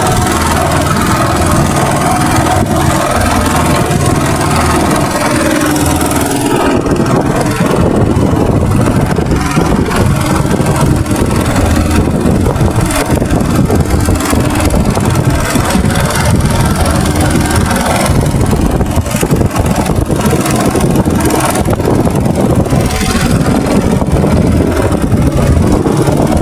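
A small passenger boat's engine running steadily while under way, with a loud rush of water and air noise over it that eases a little about six seconds in.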